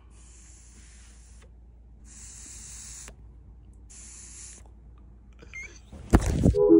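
Three hissing draws on a disposable vape, each about a second long, with a loud burst of noise near the end.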